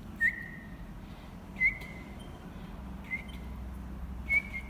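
Small songbird calling four times, about once every second and a half: each call a sharp note that levels off into a short, steady whistle.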